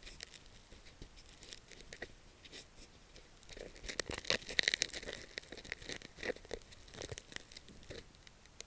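Close rustling and crackling handling noise as the camera rubs and shifts against clothing. It is densest and loudest in the middle.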